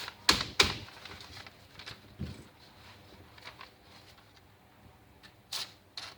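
Freshly sharpened karambit blade slicing through paper clamped in a vise, a sharpness test: short scraping strokes, two close together just after the start and two more near the end, with light handling noise between.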